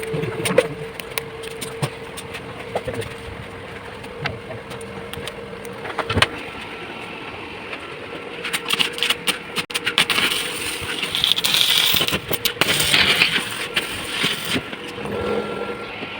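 A welding arc crackling and sputtering in irregular bursts from about halfway through. Before that there is a steady hum with scattered clicks.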